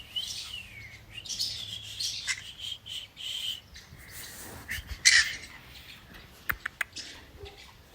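Green-cheeked conure making short, high chirps and squawks off and on, the loudest call about five seconds in, with a few sharp clicks a little later.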